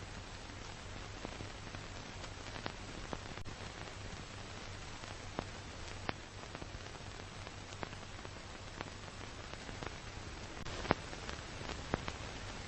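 Steady hiss over a low hum, with scattered crackles and pops, as from a worn old tape playing without programme sound.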